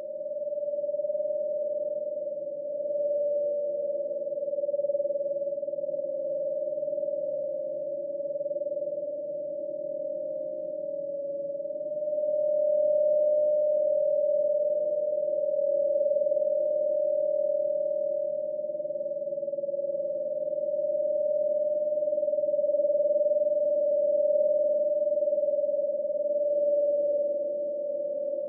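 Ghost sound effect: one sustained, slightly wavering high tone over a fainter low hum, slowly swelling and easing in loudness.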